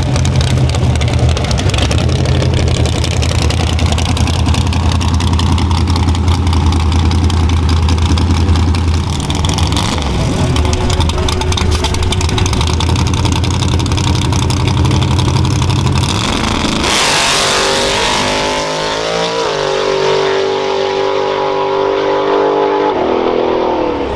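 Chevrolet S10 drag truck's engine idling with a heavy low rumble, then launching hard about two-thirds of the way through. The revs climb quickly, dropping back twice at gear changes as it pulls away.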